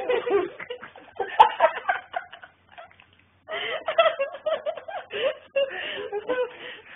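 High-pitched voices giggling and laughing, with a short break about three seconds in before the laughter resumes.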